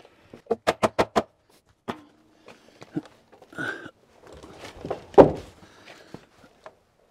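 Wooden wall framing being pounded and handled: a quick run of about six sharp knocks about half a second in as a piece is pounded into place without a hammer, then scattered knocks and a heavy wooden thump about five seconds in as the framed 2x6 wall section is shifted on the sawhorses.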